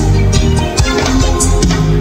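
Live reggae played by a band with a symphony orchestra: a steady bass line and drum beat under bowed violins.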